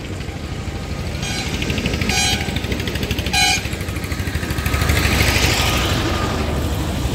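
Steady rumble of motor traffic with three short, buzzy vehicle-horn beeps about a second apart, then a swell of noise about five seconds in as a vehicle goes by.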